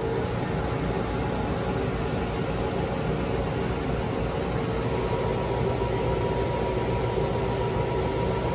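Laser cutter running while cutting acoustic foam panels: a steady machine hum with held tones, a higher one coming in about halfway.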